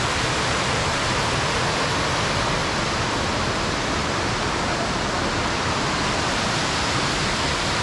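Waterfall rushing steadily, an even, unbroken hiss of falling water.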